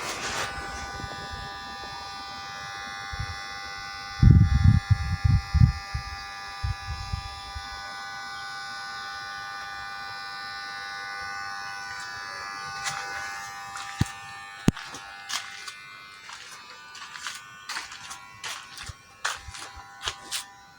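A steady buzzing hum from a small electric motor, fading away after about thirteen seconds, with a few loud low thumps around four to six seconds in and a run of light clicks and knocks near the end.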